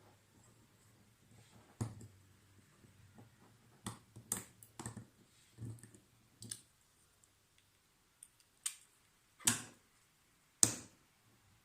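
About ten irregular, sharp clicks and knocks of hard plastic EAS security tags and a magnetic detacher being handled and set against each other. The two loudest knocks come near the end.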